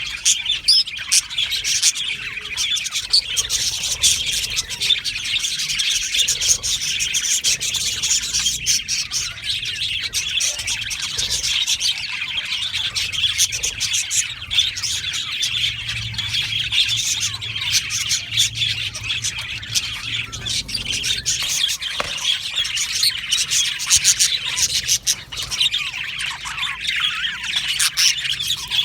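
A flock of budgerigars chattering and chirping continuously, many birds calling at once in a dense warble with occasional squawks.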